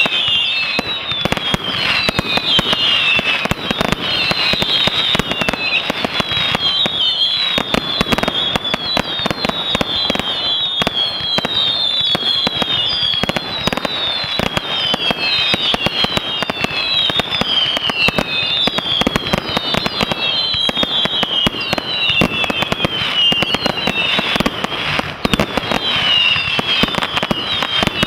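Dense firework barrage: rapid, continuous bangs and crackling, with many short whistles falling in pitch one after another.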